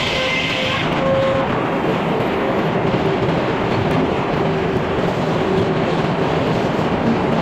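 Sawmill running and sawing through a log: a loud, steady mechanical noise.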